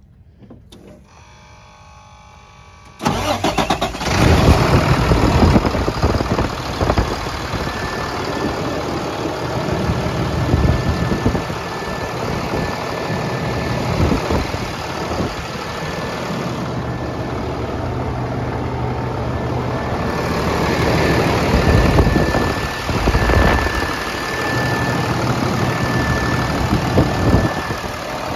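Ford F750 truck's diesel engine starting about three seconds in, then idling steadily with a thin high whine over the running.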